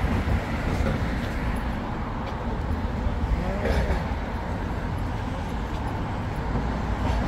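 City street ambience: a steady rumble of traffic, with faint voices of passers-by.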